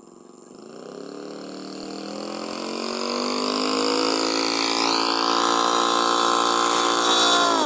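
Engine of a large radio-controlled scale warbird model running up on the ground: the revs climb steadily over the first few seconds, hold at high throttle, then drop sharply near the end as the throttle is pulled back.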